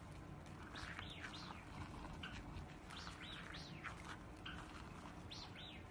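A bird calling: short chirps that rise and fall in pitch, coming in groups of two or three about every two seconds, over a faint low background hum.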